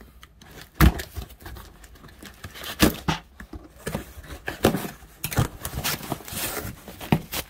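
A brown mailer package being handled and opened on a table: irregular rustling, scraping and sharp taps of paper packaging.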